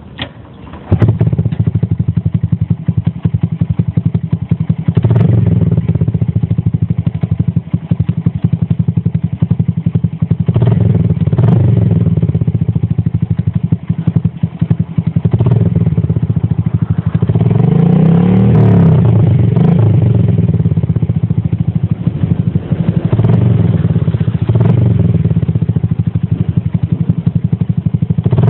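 Honda Benly CD50's small single-cylinder four-stroke engine, breathing through an open straight stainless exhaust with no silencer baffle, starts about a second in and then runs with a loud, deep, pulsing idle, blipped up and back down several times.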